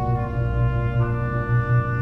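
Concert wind band playing sustained chords, brass and woodwinds together over a steady low bass; the chord shifts about a second in.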